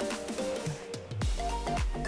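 Background music with held melodic notes; a deep bass and a beat come in just over a second in.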